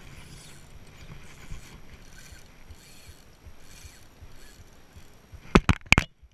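Spinning reel being cranked to retrieve line against a hooked fish: a faint mechanical whir that comes back with each turn of the handle, over wind and water noise. Near the end come a few loud sharp knocks, then the sound briefly cuts out.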